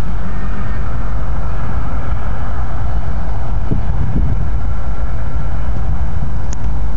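Wind buffeting a phone microphone in a loud, uneven low rumble, over the distant steady running of two Union Pacific EMD GP38 diesel locomotives moving slowly.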